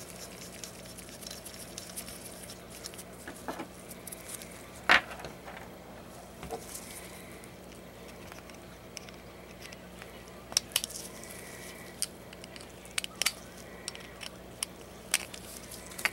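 Small steel parts of a .22 bolt-action rifle bolt being handled and taken apart: scattered metallic clicks and taps, the sharpest about five seconds in and a quick cluster around ten to eleven seconds. A faint steady hum runs underneath.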